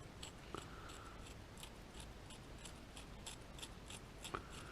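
Faint, quick scraping strokes of hand work on metal, two or three a second and unevenly spaced: the dulled cutting edge of a homemade punch being dressed by hand to repair its damage.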